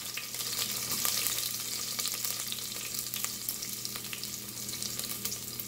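Chopped garlic, cumin seeds and dried red chilies sizzling in hot oil in a stainless steel saucepan: a steady hiss with frequent small crackling pops, the tempering of the spices before the vegetables go in.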